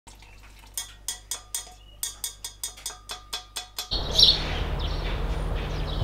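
A wooden chopstick clinking against a glass mixing bowl, about five quick taps a second, as liquid is stirred into flour. About four seconds in, the sound cuts to outdoors: steady background noise with birds chirping a few times.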